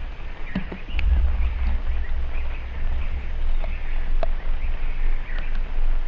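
Wind buffeting an outdoor action-camera microphone as a low, uneven rumble, with faint birdsong in the distance and a few light taps scattered through it.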